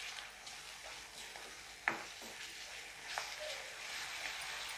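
Chopped onions and garlic paste frying faintly in an iron kadhai, stirred and scraped with a wooden spatula, with a sharper knock about two seconds in.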